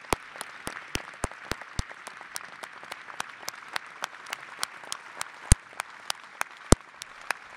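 Audience applauding: a steady patter of clapping with sharp, louder single claps standing out above it, several a second.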